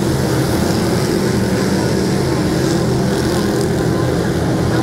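A field of dirt-track race cars lapping together, their engines making a loud, steady drone.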